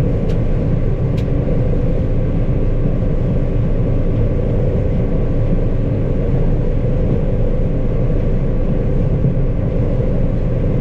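Combine harvester running steadily, a constant engine and machinery drone with a few steady tones.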